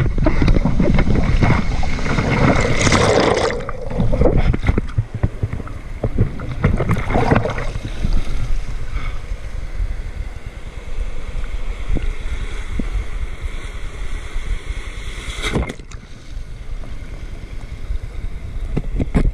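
Shallow surf washing and splashing around an action camera held at the waterline, over a constant low rumble of water buffeting the housing. The heaviest splashing comes in the first four seconds and again about seven seconds in.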